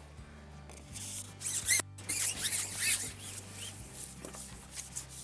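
Background music with a steady low sustained bed, with a run of short, high chirps and squeaks over it from about a second and a half in until just before four seconds.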